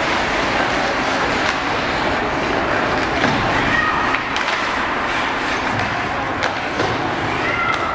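Ice hockey rink during play: a steady wash of skates scraping on the ice, with a few sharp clacks of sticks and puck.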